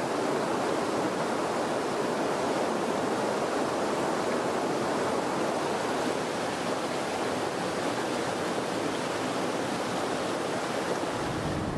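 Shallow mountain river rushing over boulders in whitewater rapids, a steady, even rush of water.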